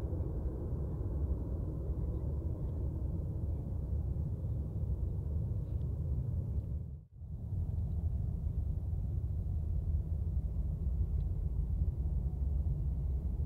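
Boeing KC-46A Pegasus tanker's twin Pratt & Whitney PW4062 turbofans climbing away after takeoff: a steady deep jet rumble that cuts out for a moment about halfway through.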